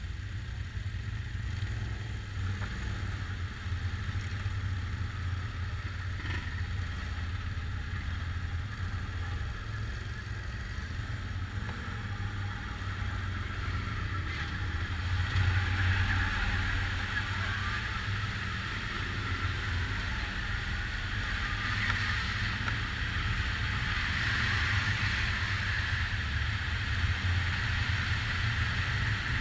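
ATV engines running at slow riding speed, heard from on board a quad, with a steady low hum. The sound grows louder and brighter about halfway through, as the quads ride from the open track into a mine tunnel.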